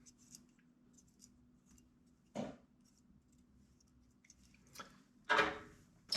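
Handling noise from airsoft rifle parts and packaging: faint clicks and rustles, a knock about two and a half seconds in, a louder scrape a little after five seconds, and a sharp click near the end.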